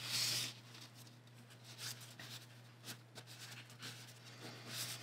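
Faint rustling and soft ticks of hands handling a paper-pieced fabric block, with a louder rustle right at the start.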